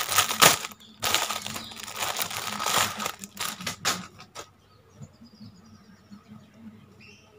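Thin clear plastic packaging bag crinkling and rustling as it is opened and a pair of children's leggings is pulled out. The crinkling stops about four and a half seconds in, leaving only faint rustles.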